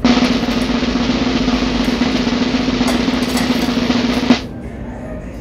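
Snare drum roll sound effect that starts abruptly and stops with a final hit about four seconds in.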